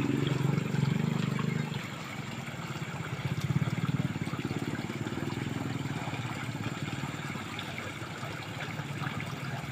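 Fast-flowing stream water rushing steadily, with a low rumble underneath that is loudest in the first two seconds.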